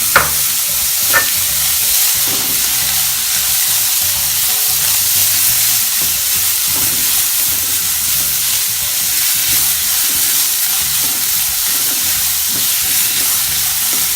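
Chopped vegetables sizzling as they sauté in butter in a pan, stirred with a steady hiss. Two sharp knocks come right at the start and about a second in, the first the loudest.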